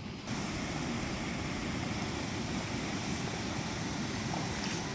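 Steady rushing noise of flowing river water with wind buffeting the microphone, growing louder about a quarter second in.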